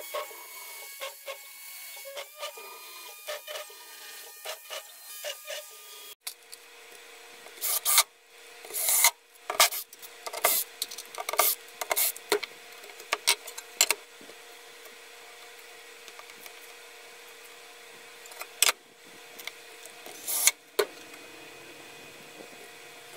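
A CNC router spindle drilling into an aluminium sheet with a steady high whine and small repeated ticks; after a cut about six seconds in, a cordless drill driving screws through the aluminium sheet into the chipboard bed in short loud rasping bursts, several in a row, over a faint steady hum.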